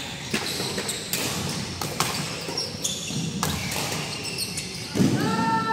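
Badminton rally: sharp racket strikes on a shuttlecock, roughly one a second, with shoes squeaking and feet moving on the court floor. A voice calls out near the end.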